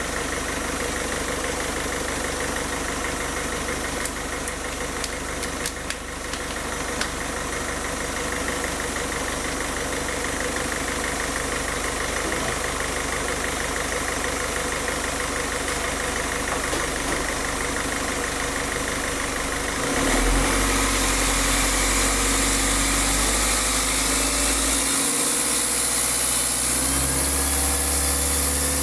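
Peugeot 407 diesel engine idling steadily after its fuel lines have been primed to keep air out. A few light clicks come about a third of the way in, and the engine note gets louder and changes about two-thirds of the way through.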